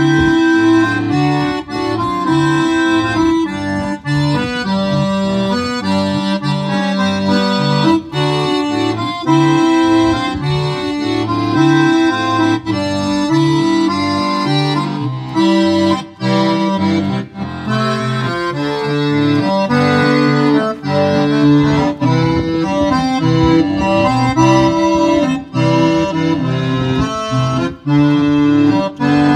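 Piano accordion playing a tune, sustained chords over a moving bass line.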